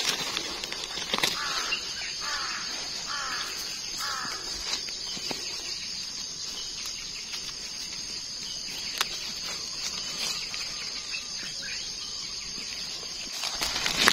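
Woodland ambience: a bird calls four times in quick succession, each a short falling note, about two seconds in, over a steady high-pitched drone. Occasional soft rustles and clicks of dry leaf litter as mushrooms are picked by hand.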